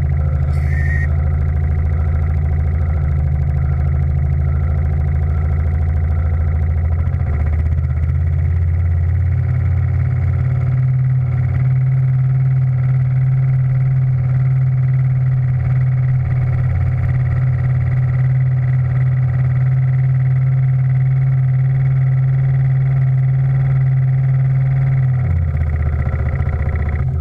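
Steam launch's steam engine running steadily with a low, even beat. Its pitch rises about eight seconds in and drops back near the end, as the engine speed is changed.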